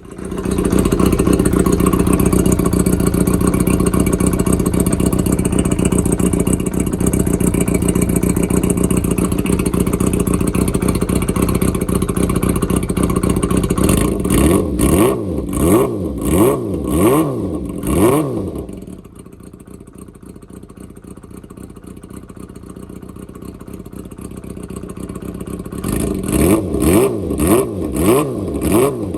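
Kawasaki GPZ400F inline-four engine running through a MISTY-style straight-pipe exhaust with a silencer fitted. It is held at steady raised revs for about fourteen seconds, then blipped about six times in quick succession. It drops back to a quieter idle, and near the end it is blipped again several times.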